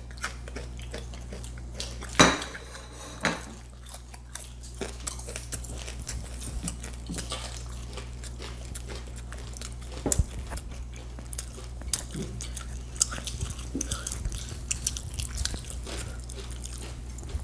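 Crisp cooked bacon being bitten and chewed, with a ceramic serving bowl set down on a stone tabletop in a sharp knock about two seconds in and a few smaller clinks of dishes after. A steady low hum runs underneath.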